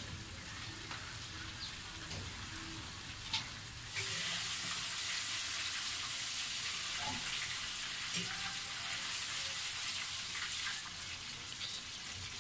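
Chicken pieces deep-frying in hot oil in a wok, a steady sizzle that comes in about four seconds in.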